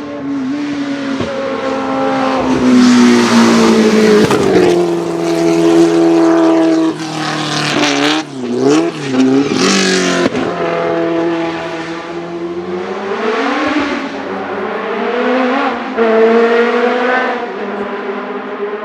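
Race car engine at high revs accelerating up through the gears, pitch rising then dropping at each shift. About eight seconds in, the revs dip and rise several times in quick succession, as with downshifts and throttle blips, then climb again.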